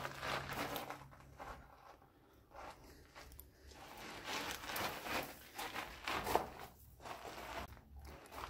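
Footsteps crunching and scraping on loose rock and gravel in an irregular series, mixed with rubbing handling noise.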